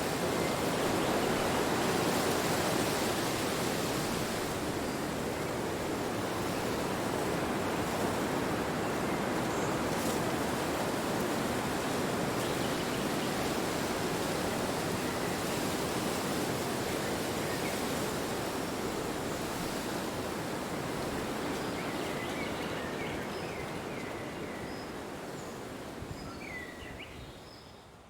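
Wind blowing as a steady rushing noise that fades away over the last few seconds.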